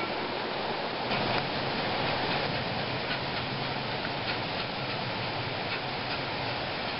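Miniature live-steam locomotive working, its exhaust beats heard as soft, regular ticks over a steady hiss.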